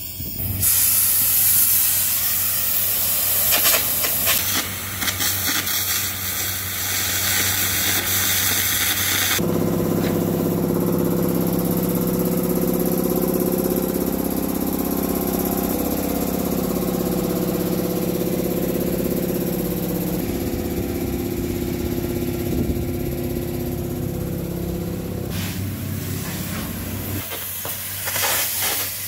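Loud hissing and crackling for the first nine seconds or so, then a Pilotair K50 workshop piston air compressor running with a steady hum of several low tones for about sixteen seconds, before the hissing noise comes back near the end.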